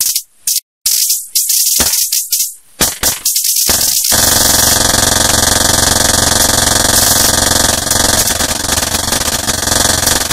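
Harsh low-tech noise-music made from sound interference. Abrupt bursts of hissing static cut in and out with sudden silences, then about four seconds in they give way to a continuous wall of loud noise over a steady buzzing hum.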